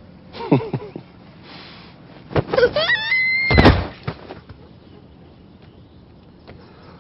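A young boy screaming as he falls: a wavering cry that rises into a held high note, cut off by a heavy thud of his body hitting the ground, the loudest moment. About half a second in there is a short sound that falls steeply in pitch.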